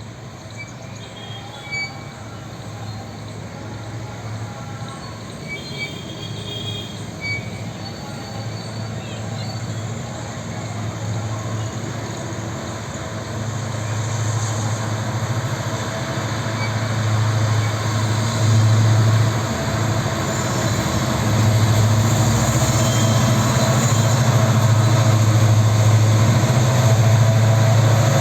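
Indian Railways WDG-4 diesel locomotive's 16-cylinder EMD two-stroke engine humming as it hauls a heavy freight train, a steady low drone that grows steadily louder as it approaches.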